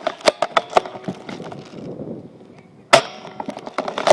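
A series of sharp, irregular cracks and snaps: three in quick succession near the start and a loud one about three seconds in, with rustling in between.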